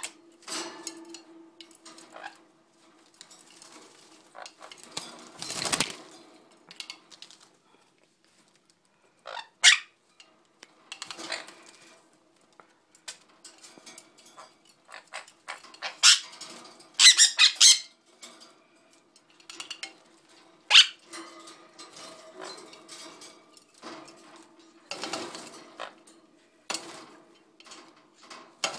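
Parrots (a green-cheeked conure, then a sun conure) bathing in a small cage-mounted bird bath: irregular splashing and wing flapping in the water, with several short, sharp, loud bursts.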